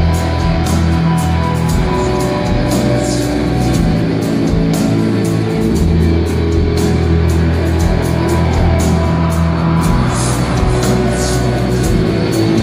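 Live rock band playing loud: distorted electric guitars over sustained bass notes, with drums and cymbal hits keeping the beat.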